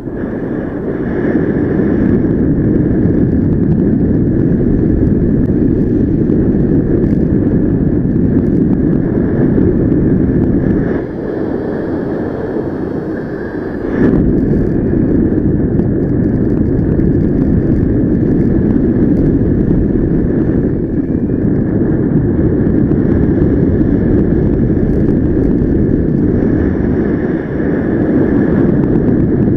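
Wind rushing over a helmet camera's microphone in paraglider flight: a loud, steady, low rumble that eases for about three seconds near the middle.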